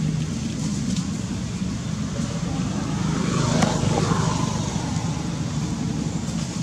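Motor vehicle engine running nearby over a steady low rumble, swelling in the middle as it passes close and then fading.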